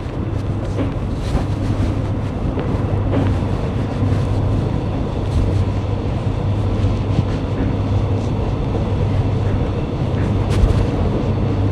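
Steady low rumble and hum inside a moving suburban electric train, with wheels running on the rails.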